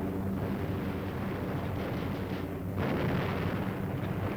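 Continuous rumbling of explosions on an old film soundtrack, swelling about three seconds in.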